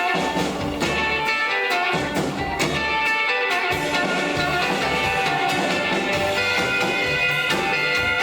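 Live rockabilly band playing an instrumental solo break with no singing: a lead electric guitar solo over bass and drums.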